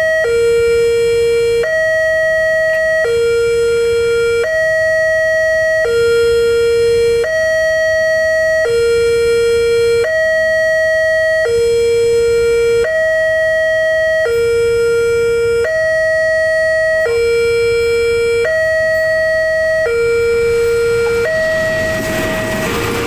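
Railway level-crossing warning alarm: an electronic two-tone signal alternating between a higher and a lower note, each held about a second and a half, warning that a train is approaching. Near the end the noise of a diesel locomotive and its wagons passing rises under it.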